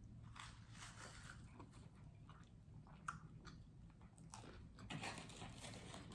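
Faint chewing and biting of a crunchy tortilla chip, with one sharper crunch about three seconds in.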